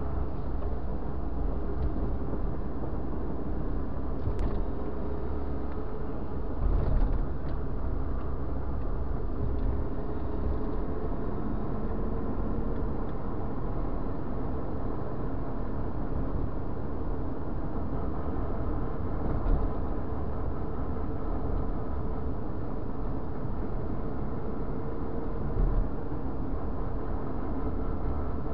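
Car engine and tyre-on-road noise heard inside the moving car through a dashcam's built-in microphone: a steady low rumble with a faint drone, broken by a few brief knocks.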